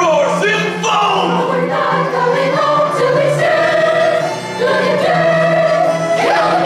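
A chorus of young voices singing long held notes together over a musical accompaniment.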